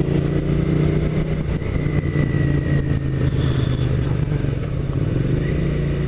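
2002 Suzuki SV650S V-twin engine with a modified exhaust, running at low speed. The note goes uneven for a few seconds in the middle, then steadies again near the end.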